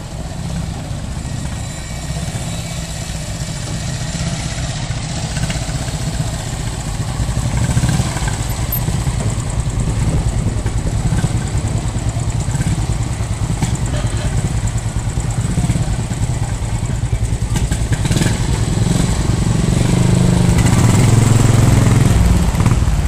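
Engines of a wartime jeep and a military motorcycle running at low speed as they drive slowly past. The jeep's engine swells loudest near the end as it comes close.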